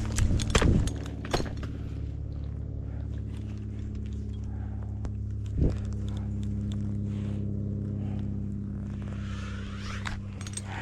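An engine idling steadily, with clinks, rustles and scrapes of gear being handled in the first second or so and a single knock about five and a half seconds in.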